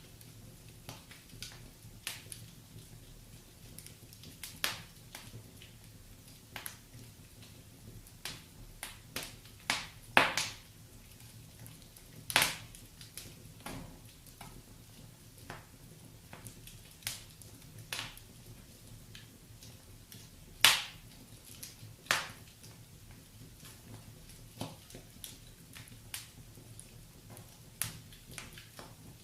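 Wood fire crackling in a fireplace: irregular sharp pops and snaps, a handful of them much louder, over a low steady rumble.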